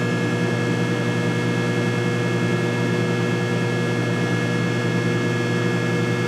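Microwave oven running through a cook cycle: a steady electrical hum.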